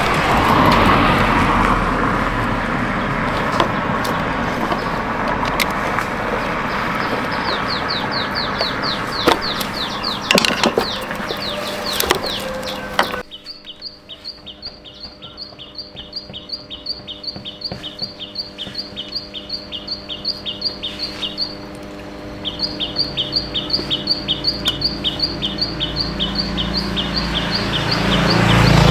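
A bird chirping over and over in a fast, even series, about three high chirps a second. Under it there is at first a noisy background with a few sharp clicks. About halfway through that noise suddenly drops out, leaving a steady hum.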